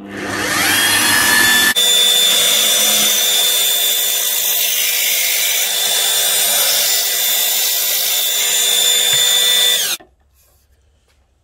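Ferrex bench drill press spinning up and a 5.5 mm bit cutting through a thin steel tube, a loud, steady high-pitched screech with ringing tones. It cuts off suddenly about ten seconds in.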